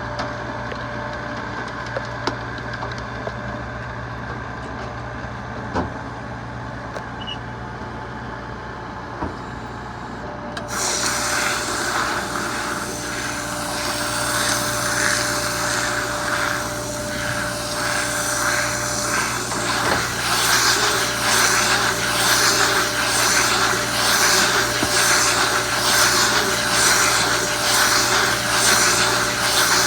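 SB850 electric stationary baler running while baling total mixed ration feed, with a steady electric hum and a few light clicks. About ten seconds in, a louder hissing, rushing noise joins in and goes on with a pulsing rhythm, growing stronger about halfway through.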